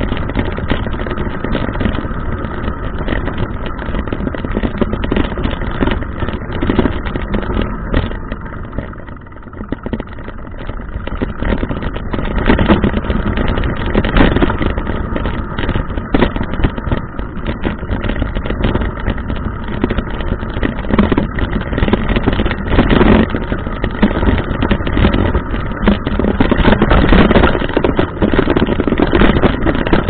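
A mountain bike riding over a rough dirt trail, heard through a handlebar-mounted action camera: a continuous rumble with constant rattling and clatter, easing briefly about a third of the way in.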